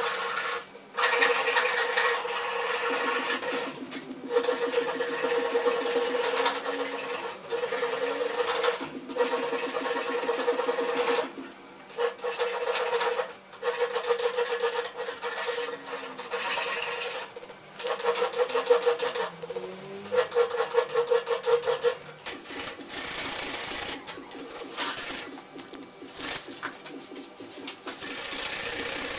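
A hand file rasping across the steel poll of an antique axe head in repeated back-and-forth strokes, about one every one to two seconds, with short pauses between them. In the last several seconds it gives way to a more continuous rubbing of sandpaper on the steel.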